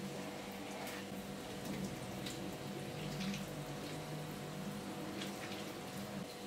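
Wooden spatula stirring a kazan of vegetable soup: soft liquid splashes and small scattered clicks, over a steady low hum.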